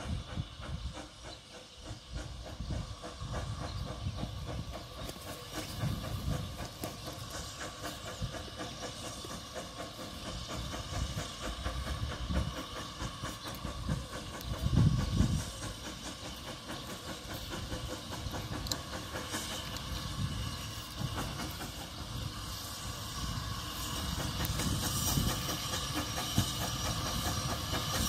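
1898 Blanc-Misseron steam tram locomotive approaching, with steam hiss and running noise that grow louder toward the end. There is a stronger low rumble about halfway through.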